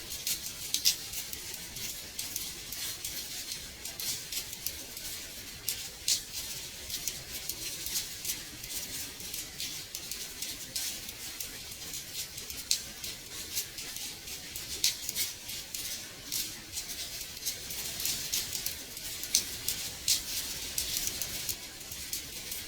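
Gentle rain pattering on a window pane: a steady high hiss with many irregular sharp taps of drops striking the glass.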